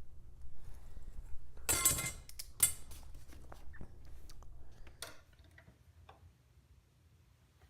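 Handling noise at a workbench as a leather strap is measured and marked: two short scraping sounds about two seconds in, with scattered clicks and taps, growing quieter after about five seconds.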